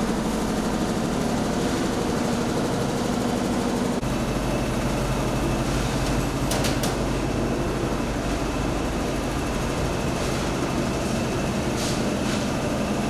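A steady low mechanical hum, like an engine or motor running without pause, with a few short clicks about six and a half seconds in.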